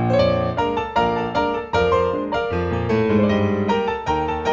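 Background music: a ragtime piano tune.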